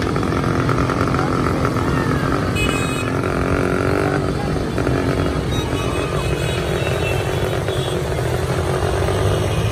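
Motorcycle engines running steadily at low speed in road traffic, with a continuous low engine hum.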